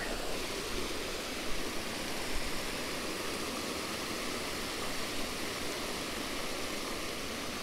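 Water pouring over a low weir into a creek pool: a steady rushing of falling whitewater.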